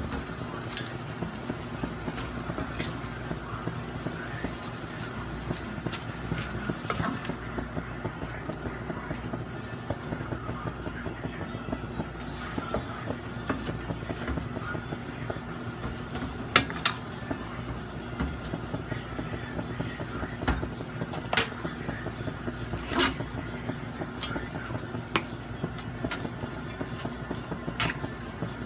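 Wooden spatula scraping and tossing noodles in a metal wok as they stir-fry over a gas flame, with a few sharp knocks of the spatula against the pan over a steady low hum.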